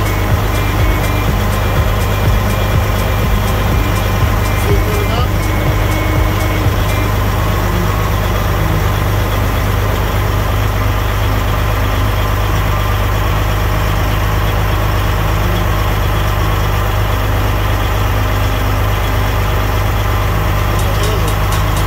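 Semi truck's diesel engine idling steadily, its air system filling the newly fitted cab air bag.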